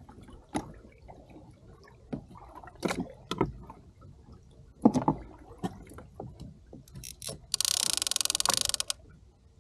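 Gear being handled on a fishing kayak: scattered knocks and clunks, the loudest about five seconds in, then a loud, rapid rasping buzz lasting about a second and a half near the end.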